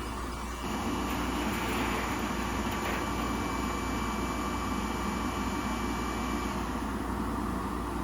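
Steady whirring of a workshop machine's motor and fans, stepping up slightly a little under a second in and then running evenly.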